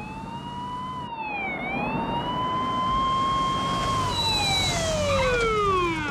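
Police car siren wailing in slow rises and falls, then winding down in one long falling glide near the end as the cruiser pulls up, over the low rumble of car engines.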